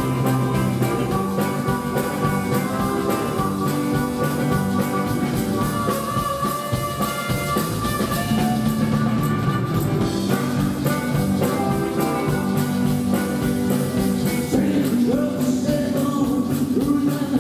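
Live rock 'n' roll band playing: electric guitars over a drum kit keeping a steady beat.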